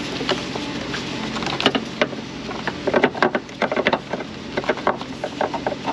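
Gloved hands wiggling an ignition coil in the spark plug well of a supercharged 5.0 V8: bursts of clicks and rattles from the coil and its connectors. Under them is the steady drone of a shop fan.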